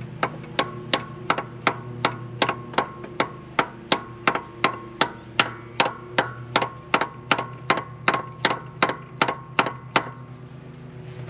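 A small soft-faced hammer taps steadily on the stuck intake valve of a 1950 Ford flathead V8, about two and a half light strikes a second, each with a short metallic ring. The tapping works the seized valve down after decades of sitting, and stops shortly before the end.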